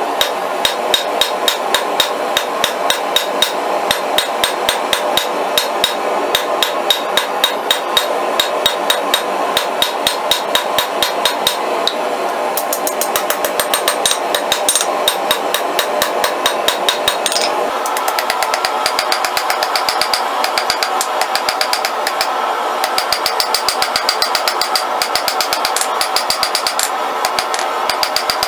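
Hand hammer striking a glowing steel bolt on an anvil in a steady run of blows, about two to three a second, each with a bright metallic ring; the ring changes pitch a little after two thirds of the way through. This is hot steel being drawn out, reducing the bolt's end to a taper.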